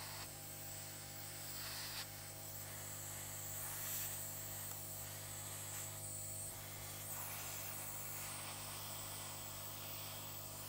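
Hot air rework gun blowing: a steady fan hum under an airy hiss, held on a laptop lid to soften the glue of a sticker being peeled off.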